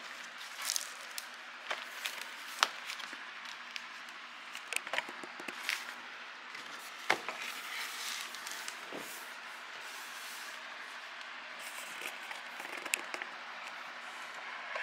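A vinyl LP's cardboard sleeve and paper packaging being handled: scattered crinkles, light scrapes and a few sharper taps over a steady background hiss.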